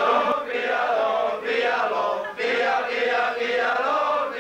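A group of men singing together in a loud unison chant, with a short break for breath about two and a half seconds in.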